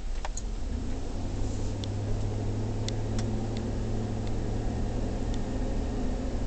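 Steady cabin noise of a 2008 GMC Denali being driven slowly: a low engine and road hum, with a few faint ticks.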